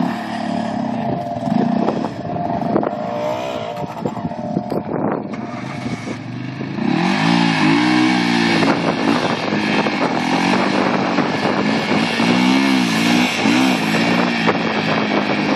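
Yamaha Raptor 700R ATV's single-cylinder engine running under way off-road. From about seven seconds in it gets louder, revving up and down again and again.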